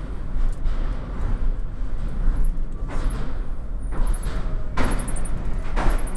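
Train rolling onto a train ferry, with a steady low rumble from its wheels on the rails and three short clunks a second or two apart as the wheels cross rail joints and points on the linkspan.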